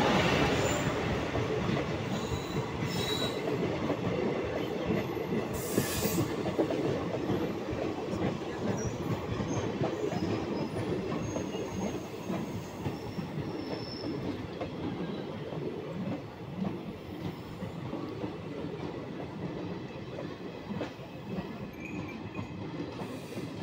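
Freight train wagons rolling past on the rails, wheels clattering with short high squeals now and then. The noise slowly grows fainter as the train moves away.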